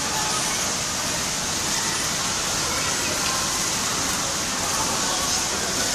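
Torrential downpour: a steady, unbroken hiss of heavy rain.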